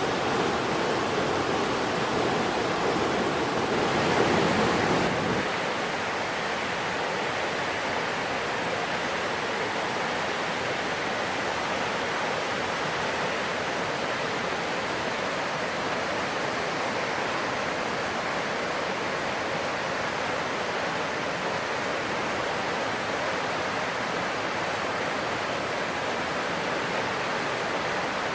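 Mountain stream rushing over rocks, a steady full rush of water. About five seconds in it drops a little and loses its deep low rumble, then runs on evenly.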